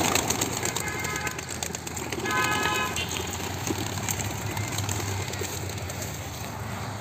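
A flock of racing pigeons bursting out of a crate and taking off, wings clattering loudest at the start and thinning as the birds climb. Two short horn toots sound about one second and two and a half seconds in.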